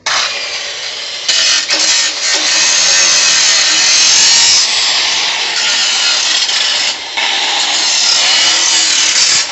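Angle grinder cutting metal on a motorcycle, starting abruptly and running loud, with a few brief dips as the disc bites and eases off.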